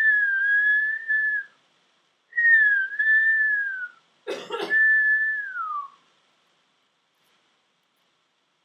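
A person whistling three long, nearly steady notes with short gaps between them. The third note slides down in pitch at its end. A brief rough noisy burst comes just before the third note.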